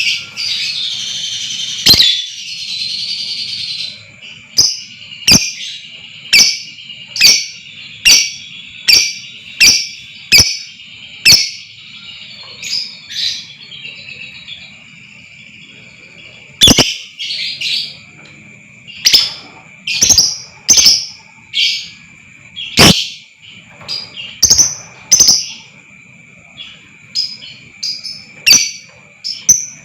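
Lovebird calling: a fast chattering run for the first few seconds, then a series of sharp, short chirps about one a second, some in quick pairs, over a steady high whine.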